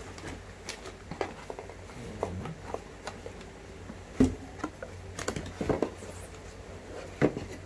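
Cardboard box inserts and a plastic-wrapped packet being handled and shifted inside a shipping box: scattered taps, knocks and rustles, with two sharper knocks about four seconds in and near the end.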